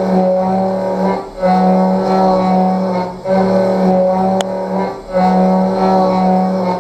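CNC vertical mill's end mill side-cutting a contoured metal block: a steady, loud, pitched cutting hum that breaks off briefly about every two seconds as each pass ends and the next begins. One sharp click about halfway through.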